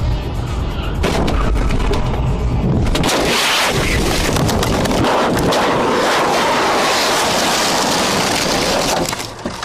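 Car crash: a long, loud run of crashing, scraping and rattling impacts, building from about a second in and at its loudest for about six seconds before falling away near the end.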